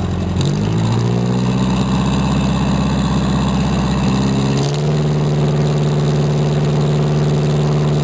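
Jeepney's diesel engine running under way. Its revs step up and climb slowly for a few seconds, then the note changes abruptly and holds steady.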